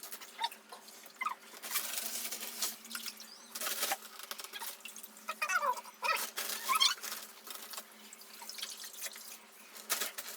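Water dripping and splashing in short irregular spurts, over a faint steady hum.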